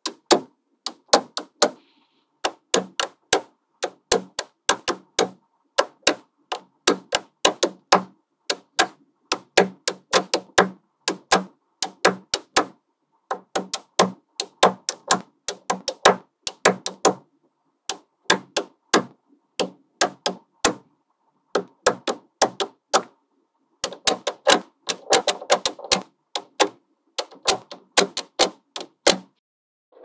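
Small magnetic balls clicking sharply against one another as they snap together, several clicks a second in irregular runs with short pauses between them.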